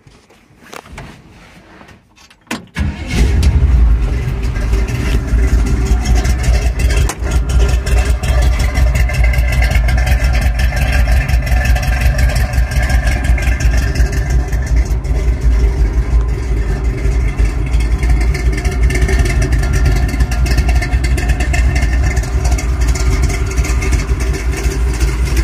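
1968 Chevy C10's de-stroked 400 small-block V8 (350 crank in a 400 block, about 377 cubic inches) starting about three seconds in after a few faint clicks, then running steadily at idle.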